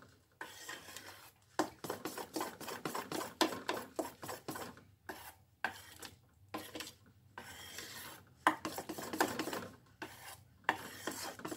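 Hand mixing thick urad dal batter with semolina in a stainless steel plate: fingers rubbing and scraping the batter against the metal in quick, irregular strokes with short pauses.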